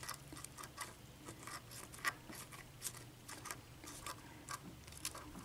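Faint, irregular small metallic clicks and scrapes of a lock pick working the pin stacks of an Abus 83/50 padlock's Kwikset keyway under tension, with a couple of sharper clicks about two and three seconds in.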